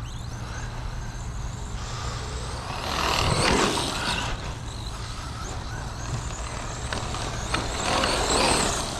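Team Associated Pro2 SC10 brushless RC short course truck driving past, its motor and tyres swelling and fading, once about three seconds in and again near the end. Its drivetrain, with a steel spur gear, runs fairly quietly. A steady low hum sits underneath.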